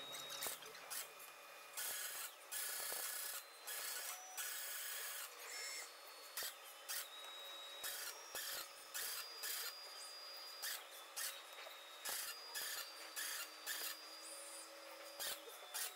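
OTC robot MIG-welding an aluminum column, played back at ten times speed: a quick, irregular string of short arc hisses, each lasting a fraction of a second to about a second, with faint thin tones between them.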